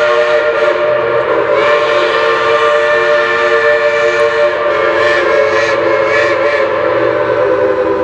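Shay geared steam locomotive's chime whistle blowing one long, loud, steady chord of several notes.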